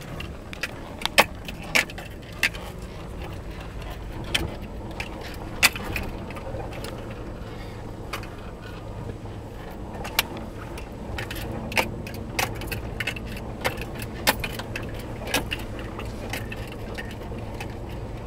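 Inside a pickup truck's cab crawling over a rough dirt trail: a steady low engine and tyre rumble, with irregular sharp clicks and rattles as the cab jolts over the bumps.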